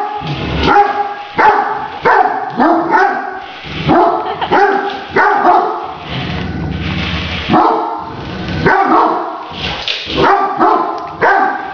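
Great Dane barking repeatedly, about one to two deep barks a second, at a remote-controlled toy tarantula on the floor.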